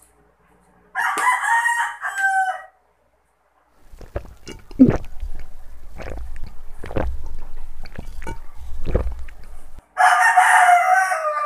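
A rooster crows twice, about a second in and again near the end, each crow falling in pitch at its close. In between come low knocks and handling noise, the loudest a thump about five seconds in.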